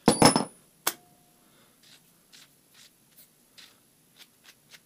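Steel and aluminium parts being handled at a lathe's three-jaw chuck: a loud metal clatter at the start and a sharp click just under a second in with a brief ring. Then soft, light ticks and scrapes as the freshly threaded aluminium nut is turned on its threaded part by hand.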